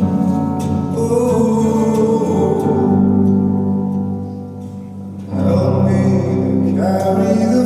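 Live music: held chords with singing. The sound thins out about four and a half seconds in, and a new chord comes in just after five seconds.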